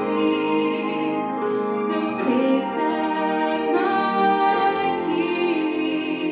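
A woman singing into a handheld microphone over instrumental accompaniment, amplified through a sound system, with long held notes that waver in pitch.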